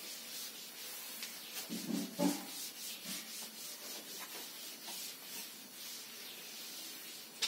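Chalkboard duster rubbing back and forth across a chalkboard in repeated wiping strokes as the board is erased.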